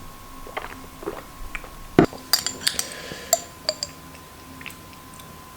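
Tableware clinking as someone eats: chopsticks tapping against a bowl, with one sharp knock about two seconds in and a quick run of short ringing clinks just after.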